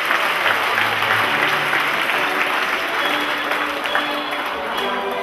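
Audience applauding, a dense clatter of clapping that eases off slightly, with music starting to come in faintly under it near the end.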